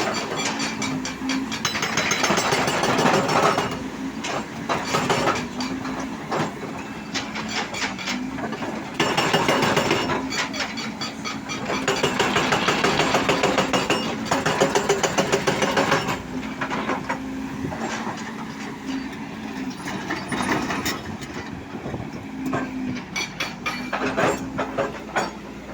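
Excavator working: its engine runs with a steady hum, broken by several stretches of dense rattling and clanking from the machine.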